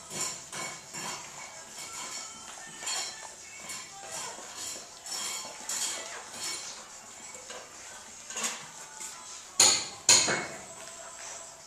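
Irregular light clicks and clinks, with two loud sharp knocks close together near the end.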